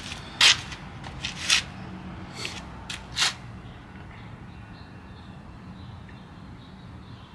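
Several short, sharp rustling or scraping noises in the first three seconds, then only a low steady hum.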